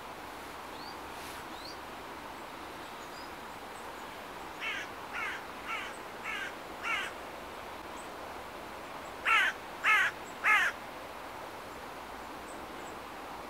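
A crow cawing: a run of five short harsh caws, then three louder ones a couple of seconds later, each call dropping in pitch.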